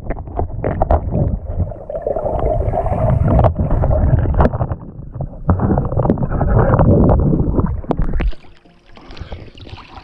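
Water heard through a camera held under water beside a rowing boat's hull: a loud, muffled rush and gurgle of moving water with many sharp clicks and knocks. About eight seconds in it drops sharply to a much quieter sound.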